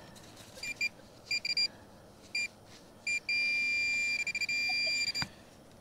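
Metal detector target tones: several short high beeps, then one long steady tone of about two seconds that cuts off sharply. The detector is signalling a coin target, an Australian $2 coin.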